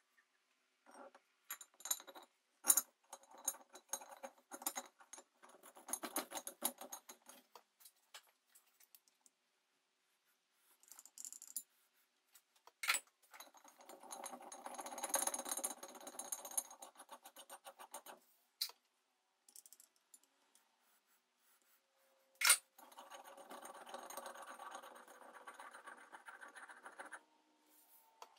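Threaded steel screw being slid and turned into a cast-iron vise body. There are three stretches of fast metallic rattling and scraping as the threads ride against the casting, with a few sharp clinks between them.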